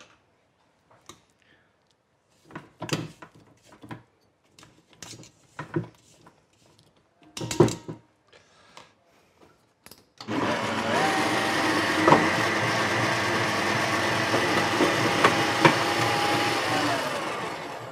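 A spatula scraping and knocking against the sides of a stainless steel mixing bowl in short strokes. About ten seconds in, a Kenwood Major stand mixer's motor starts and runs steadily with a whine, its whisk creaming butter and sugar, then winds down near the end.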